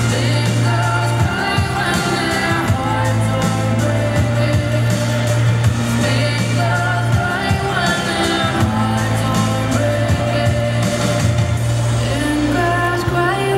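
Pop song with a sung vocal line over a sustained bass and a steady beat.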